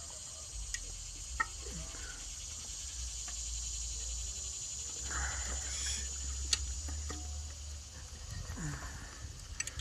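A few sharp clicks and a brief rustle of hands handling parts in a car's engine bay, around the ignition coil pack and its connector, over a steady low hum and a high hiss.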